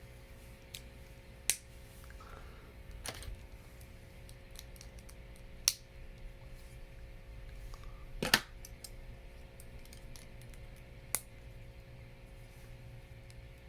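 Plastic Lego pieces being handled and snapped together: scattered sharp clicks, a handful of louder ones among many faint ones, over a low steady hum.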